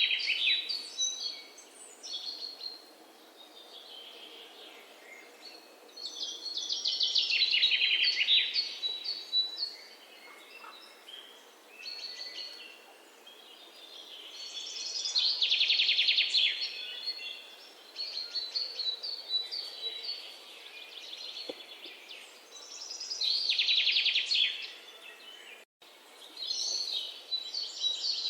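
Birds singing: a loud, rapidly trilled song phrase comes back roughly every eight seconds, with softer chirps between. The sound cuts out for an instant near the end.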